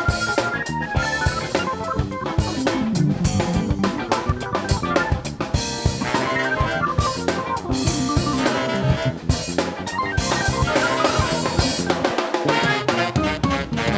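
Funk band playing live: a drum kit keeping a steady beat of bass drum and snare, under bass, piano and a horn section.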